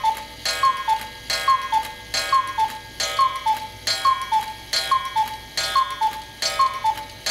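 Chalet-style cuckoo clock calling, counting out the hour: a two-note cuckoo, high note then lower note, repeated about eight times at a little more than one call a second, each call opening with a sharp click.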